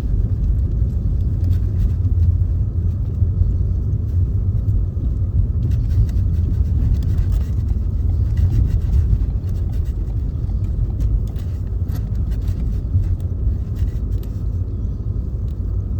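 Wind buffeting the microphone in a loud, steady low rumble, with faint ticking of sleet pellets hitting a car.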